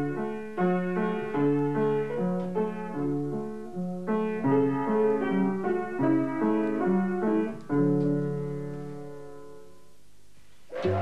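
Beckwith upright piano played by hand: a slow melody over chords, ending about eight seconds in on a held chord that dies away.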